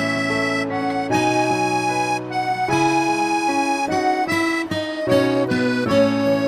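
Background instrumental music: a melody of held notes over sustained chords, changing every half second or so.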